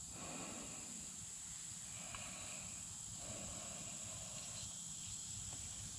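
Faint steady background hiss with a constant high-pitched tone over it, and a little soft rustling.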